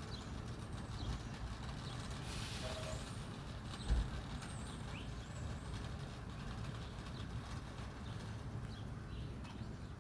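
Faint short bird chirps here and there over a steady low rumble, with a single thump about four seconds in.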